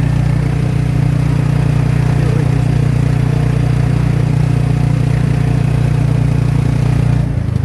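Motorcycle engine of a tricycle (motorcycle with sidecar) running steadily under way, easing off near the end.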